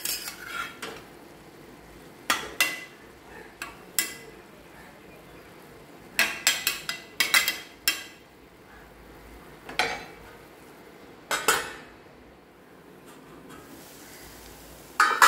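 Steel spatula stirring and scraping chopped plantain-stem masala in a stainless steel pan, in short scattered strokes, with a faint sizzle between them. Just before the end a steel lid clanks against the pan.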